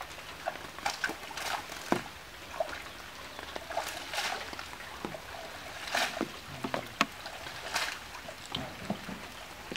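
Wet cast net being dipped and swished in shallow water and lifted dripping: irregular splashes and trickling water, with a few small clicks.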